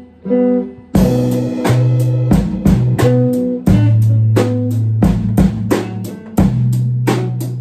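Instrumental rock trio playing: a guitar riff alone, then about a second in the drum kit and bass guitar come in together. The drums keep a steady beat of bass drum, snare and crashing Sabian cymbals under long bass notes and the guitar.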